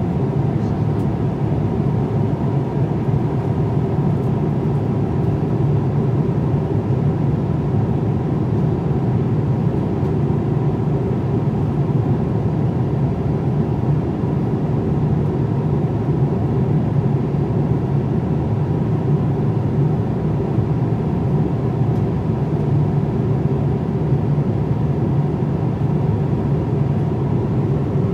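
Steady cabin noise inside a Boeing 787-9 airliner in flight: an even, low rumble of rushing air and engines.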